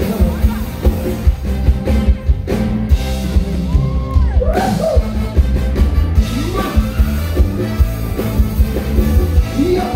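Live band music played loud through a PA: electric guitars and keyboard over a thumping drum and bass beat, with a male singer's voice.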